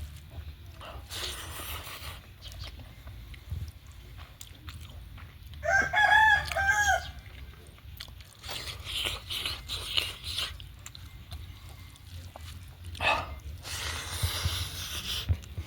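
A rooster crows once, about six seconds in: one loud call of about a second and a half, the loudest sound here. Around it, close-up chewing and crunching of food.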